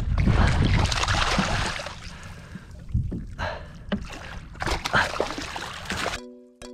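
Water splashing as a hooked fish thrashes at the surface beside a kayak and is scooped into a landing net, with several sharp splashes in the middle seconds. Music cuts in abruptly near the end.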